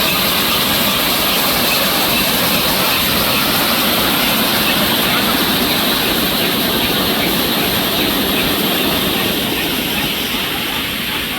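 Waterfall: falling water making a loud, steady rush, easing slightly near the end.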